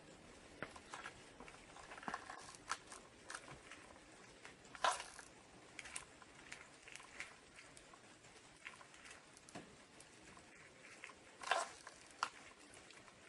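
Scattered light clicks and knocks from an electric skateboard being handled and pressed on, with a louder knock about five seconds in and another near the end.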